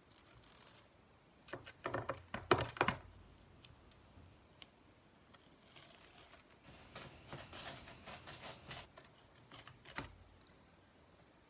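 Adhesive Chalk Couture silk-screen transfer being peeled off a painted wooden board: a quick run of sharp crackling ticks about two seconds in, then softer crinkling as more of the screen lifts away, and a single tap near the end.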